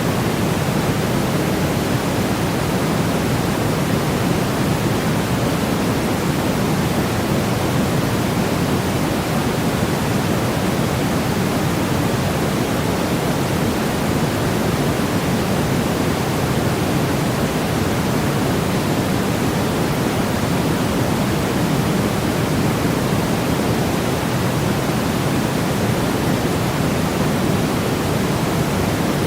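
Constant white-noise track: an even, unchanging hiss, weighted toward the deep end.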